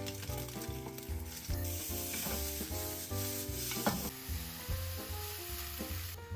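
Food sizzling in a nonstick frying pan as it is stirred, stronger in the second half and cutting off suddenly near the end. Soft background music with a steady bass beat plays underneath.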